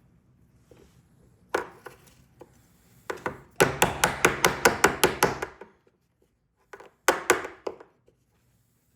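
Hammer tapping on the metal of a car door lock: one strike about a second and a half in, then a fast run of about ten light, even taps, and a short burst of three or four more near the end.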